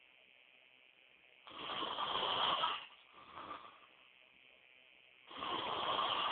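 A man snoring loudly: two long snores about four seconds apart, the first followed by a shorter, softer one.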